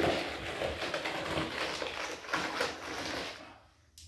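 Rustling and light clatter of parts being handled as new valve guides are picked out of a cardboard parts box. It drops away about three and a half seconds in, with one sharp click near the end.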